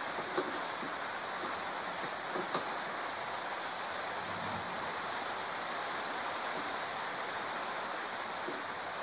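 Steady hiss, with a few faint clicks as wires and a plastic control-panel cover are handled, once near the start and again about two and a half seconds in.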